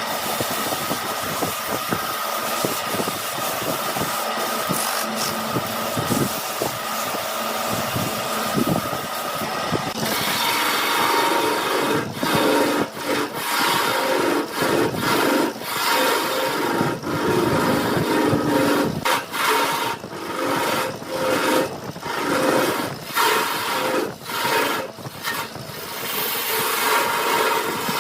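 Wood lathe running with a tool scraping against the spinning workpiece. It is steady at first, then from about ten seconds in it turns into a run of short, uneven scraping strokes with brief breaks between them.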